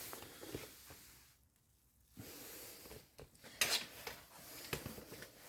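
Faint rubbing and a few light clicks of hands handling the plastic door trim and the pried-out door lock switch.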